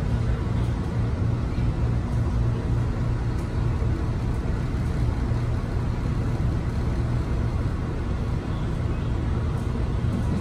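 Inside a Metro-North M3A electric multiple-unit railcar under way: a steady low rumble of the moving train, with a few faint clicks.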